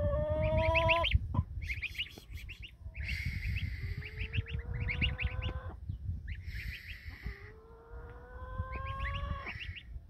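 Day-old goslings and Muscovy ducklings peeping in rapid, short, high chirps, while a hen calls with long drawn-out notes: one at the start, then two slowly rising calls about four and eight seconds in.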